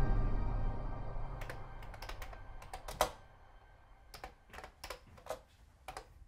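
Computer keyboard keys tapped slowly and unevenly, one click at a time, as a music track fades out over the first couple of seconds.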